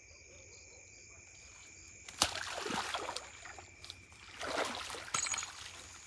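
Crickets trill steadily. About two seconds in, a sharp knock is followed by two stretches of rustling, splash-like noise, as dry reeds and ground are disturbed.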